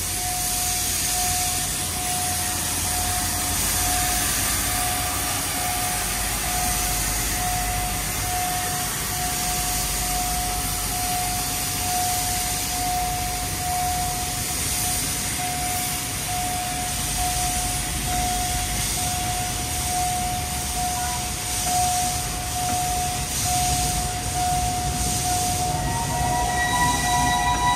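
Steam locomotive hissing steam, the hiss pulsing faintly, under one steady high tone. About two seconds before the end, a louder chord of several higher tones starts, like a whistle or horn.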